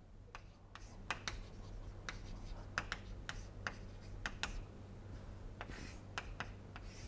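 Chalk writing on a chalkboard: a run of short, irregular taps and scratchy strokes as words are written, over a low steady hum.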